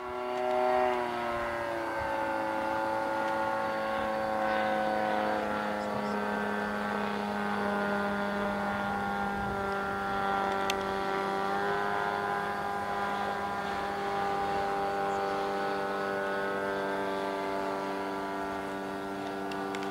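Propeller engine of a Caudron C.366 racer in flight, a steady drone that drops in pitch over the first couple of seconds as the plane passes, then holds nearly level.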